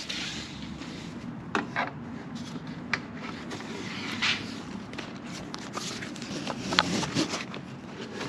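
Handling noise from tent straps and buckles being worked and hooked under a pickup's rear bumper: scattered clicks, light knocks and scrapes, spread unevenly throughout.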